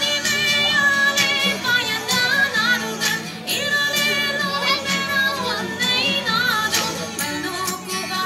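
A woman singing a song over backing music with percussion.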